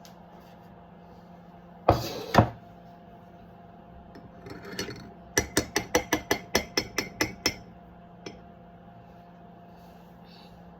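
Two loud clunks, then a quick run of about eleven even clicks, about five a second, and one last click, over the steady hum of a running kitchen appliance.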